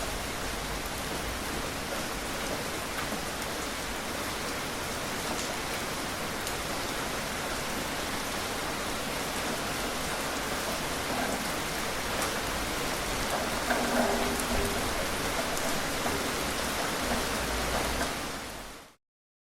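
Steady rain falling, an even hiss of many drops, fading out quickly near the end.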